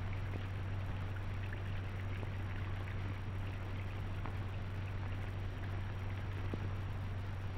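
Steady low hum and hiss with faint scattered crackles: the background noise of an old film soundtrack.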